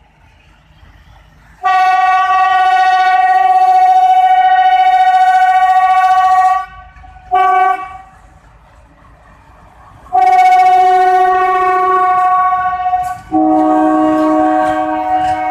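Diesel locomotive air horn sounding: a long blast of about five seconds, a short toot, then another long blast of about three seconds. Just after that a lower-pitched horn with several tones at once begins and carries on.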